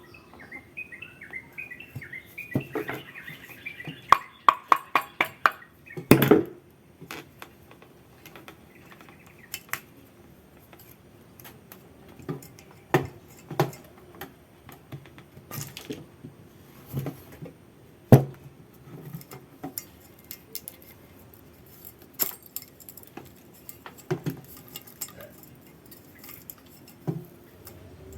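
Irregular clicks and clinks of metal tools and fan-motor parts being handled, with a quick run of knocks about four to six seconds in.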